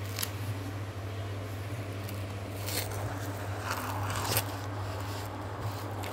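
Aquarium pump humming steadily and low, with a few brief rustles and clicks about three seconds in and again around four seconds in.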